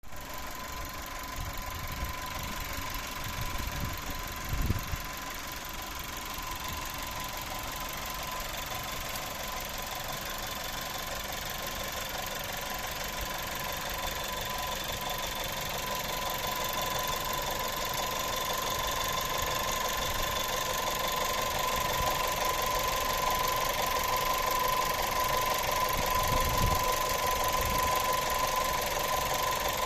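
Skoda Octavia A7 1.4 TSI engine running with a steady, high whistle that grows gradually louder, which the owner puts down to the turbocharger on a car with 150,000 km. A couple of brief low thumps come in, one near the start and one near the end.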